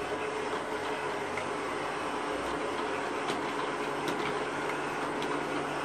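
Robot vacuum cleaners, a Sencor SVC702 and a Dirt Devil M607, running: a steady whir of suction motor and brushes with a low hum, and a few light clicks from about three seconds in.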